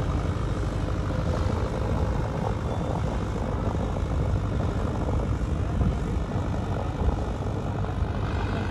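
Diesel tractor engine running steadily under load while it pulls a disc harrow through sandy soil.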